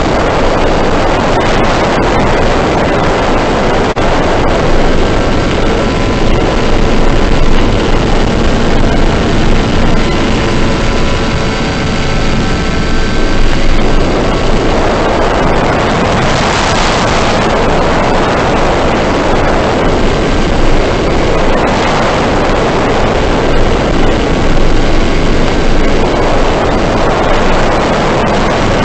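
Loud wind rush over the microphone of a camera riding on a model airplane, with the motor and propeller faintly under it. The motor's tone shifts in pitch near the middle.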